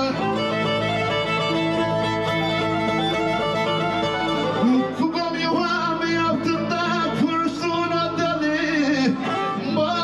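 Background music led by a bowed Black Sea kemençe, over a steady low drone.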